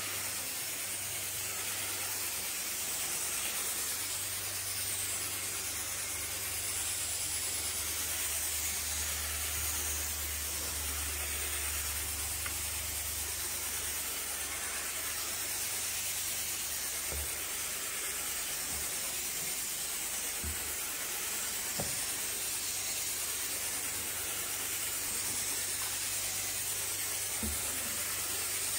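Carpet-cleaning extraction wand spraying and vacuuming: a steady hiss with a low hum under it, and a few faint knocks in the second half.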